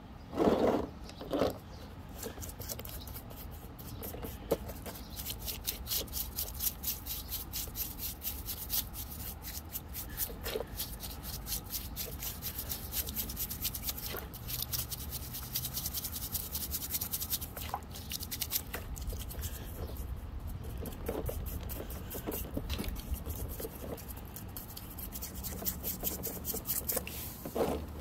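Bristles of a small paintbrush scrubbing wet fossil-bearing rock in a tub of muddy water: a fast, steady scratching of bristles against stone. A couple of louder knocks come in the first second or two.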